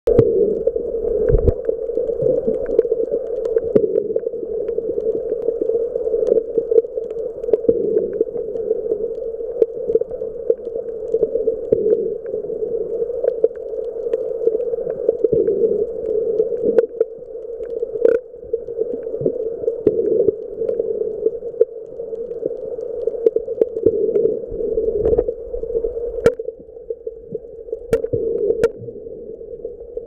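Muffled underwater noise picked up by a camera filming below the surface: a steady hum with many scattered sharp clicks and knocks.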